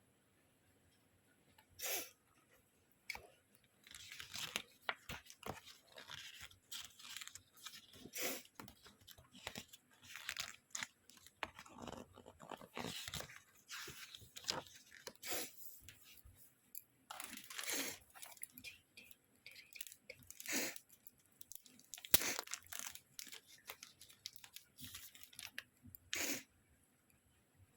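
Packaging being handled during an unboxing: irregular crinkling, rustling and crackling of plastic and paper, with occasional louder crunches and tearing.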